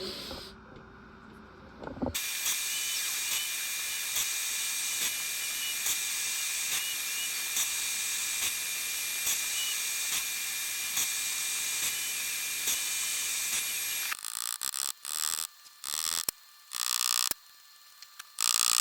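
A small high-speed power tool, working on the pocket knife, starts about two seconds in and runs steadily with a high whine and a faint regular tick. Near the end it cuts in and out in a few short bursts.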